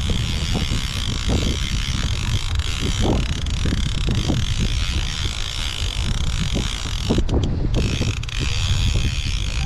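A fishing reel being wound slowly against the pull of a heavy fish, under steady wind noise on the microphone and a low rumble.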